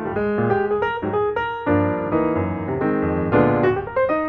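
Background piano music: a light melody of quick, separate notes over chords.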